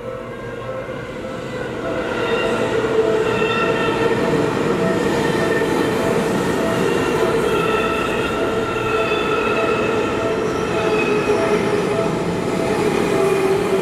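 Seibu Ikebukuro Line electric train running through a level crossing: steady rumble of wheels on rail with squealing tones, growing louder about two seconds in. The crossing's warning bell keeps ringing in a repeating pattern through it.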